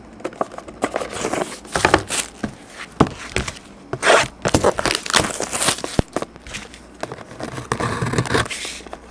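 Plastic shrink wrap crinkling and tearing in irregular rustles as it is cut with scissors and pulled off a sealed trading card box.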